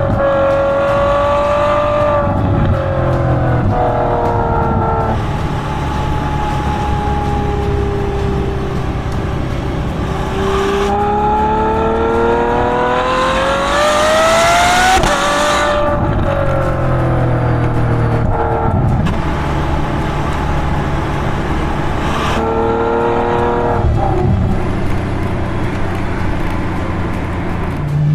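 Ferrari F12 Berlinetta's 6.3-litre V12 exhaust, heard close up at the rear bumper while driving, its note rising and falling with the throttle. A long climbing pull runs from about ten seconds in, then the pitch drops sharply and falls away as the car slows.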